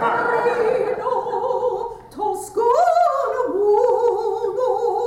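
A woman singing solo in a mock-operatic style, holding long notes with vibrato, with a brief break for breath about two seconds in.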